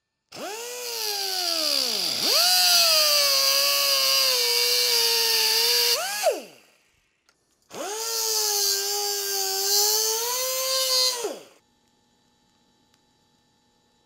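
A high-speed cut-off tool whining in two runs, the first about six seconds and the second about four, as it cuts the steel accelerator tunnel rod shorter. Each run spins up quickly, its pitch sags a little under load, and it falls in pitch as the tool winds down.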